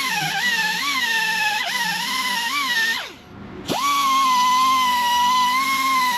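Electric grinder grinding down a fresh weld, its whine wavering and dipping in pitch as it bites into the metal. About three seconds in it is switched off and winds down, then started again about half a second later and spins back up to a steady whine.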